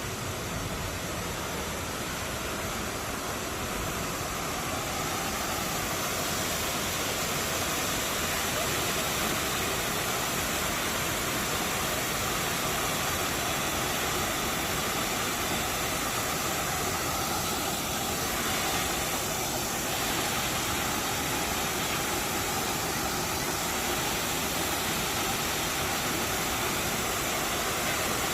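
Triberg Falls' water rushing down its cascades: a steady, even rush of falling water that grows a little louder over the first several seconds, then holds.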